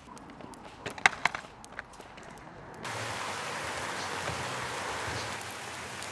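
A few light taps and knocks of flowers being beaten into fabric to release their dye. About three seconds in, these cut to a steady hiss of rain.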